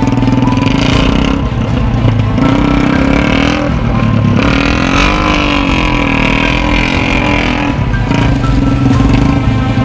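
Three-wheeled motorcycle with a Yamaha MX engine running steadily, its pitch wavering up and down through the middle before settling again.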